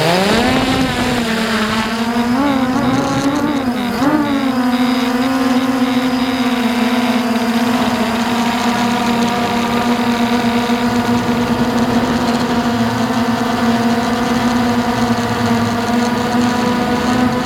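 Hubsan H109S X4 Pro quadcopter's motors and propellers, heard up close from its own onboard camera, spinning up to a steady buzzing hum as it lifts off. The pitch wavers twice in the first few seconds of the climb, then holds steady in flight.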